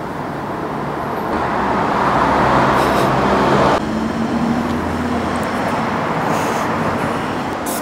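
A microfibre towel rubbing across a car's rear diffuser: a swelling rubbing hiss that cuts off abruptly about four seconds in. After that comes a steadier background hum with a faint low drone.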